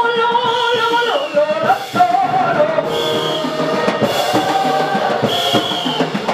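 Live gospel praise music played through a PA: a drum kit beat with cymbal splashes about every second and a quarter, under long held notes and a singing voice.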